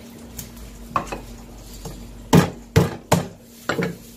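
Heavy kitchen knife chopping into a whole fish and knocking against a plastic cutting board: one light knock about a second in, then four or five sharp, heavy chops in the second half.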